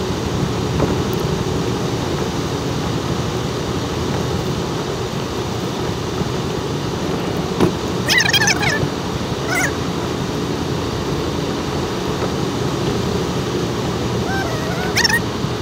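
Steady engine and road noise inside a moving vehicle, with a short higher-pitched choppy burst of sound about eight seconds in and another near the end.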